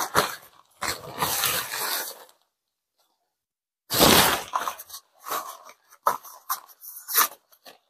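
Handling noise from an inflatable costume suit: fabric rustling, then a gap, a sudden thump and a run of small clicks and knocks as its parts are handled.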